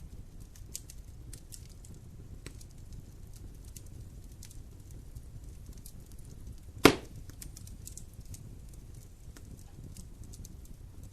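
Wood fire burning in a fireplace: a low steady rumble of flames with small scattered crackles, and one loud sharp pop about two-thirds of the way through.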